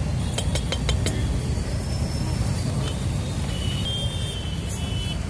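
Steady low rumble of road traffic, with a quick run of sharp clicks about half a second to a second in and a faint high tone near the end.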